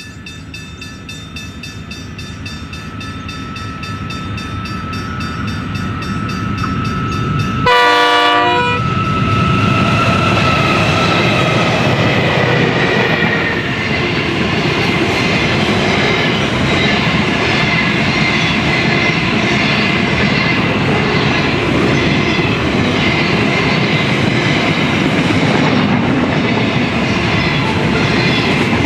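Freight train approaching and passing close by. Its horn grows louder over about eight seconds, sounds a short loud blast and drops in pitch as the locomotive goes past. Then comes the steady rumble and clickety-clack of the wagons rolling by.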